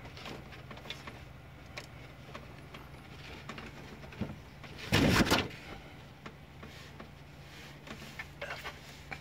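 Handling noise inside a computer case: scattered light clicks and rustles as cables and parts are handled, with one louder scraping rustle about five seconds in, over a low steady hum.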